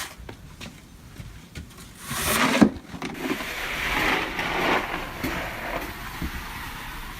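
Snow shovel scraping and scooping through snow: a sudden scrape with a knock about two and a half seconds in, then a few seconds of rough scraping.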